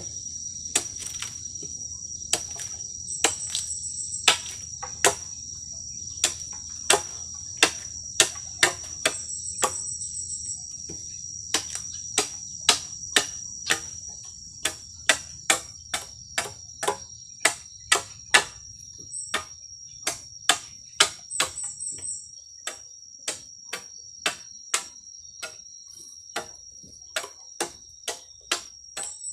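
A machete chopping at a bamboo pole in a steady rhythm of sharp strikes, about one and a half a second. A constant high insect drone runs underneath, with short high trills now and then.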